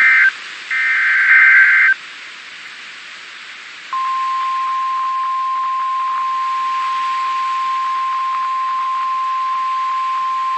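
Emergency Alert System SAME data bursts, two short buzzy screeches of digital tones. About four seconds in, the steady single-pitch NOAA Weather Radio 1050 Hz warning alarm tone starts over radio hiss; it signals that a warning message is about to follow.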